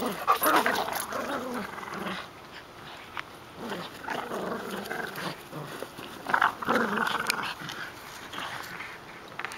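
A French bulldog and a chihuahua-dachshund mix growling in play while tugging on a deflated soccer ball, in several bouts that swell and fade.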